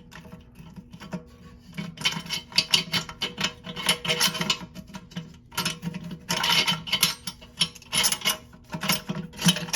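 Hard plastic parts rubbing, scraping and clicking in irregular clusters as a new toilet flush valve is worked sideways into the tank and seated.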